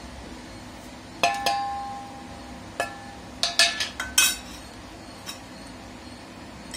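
Stainless steel spoon and plate clinking against a stainless steel bowl while dry spice powders are mixed: about eight sharp metallic clinks, a few ringing briefly, most of them between about one and four and a half seconds in.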